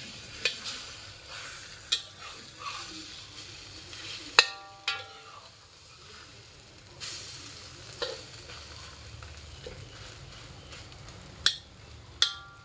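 Egg and sliced onion frying with a sizzle in a wok while a metal spatula scrapes, turns and breaks it up. Sharp ringing clanks of the spatula against the wok, the loudest about four seconds in and two more near the end.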